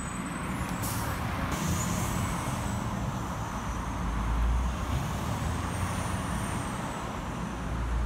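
Diesel articulated truck and semi-trailer driving through a roundabout and pulling away, its engine rumbling steadily and getting louder around the middle. A short hiss of air sounds about a second in.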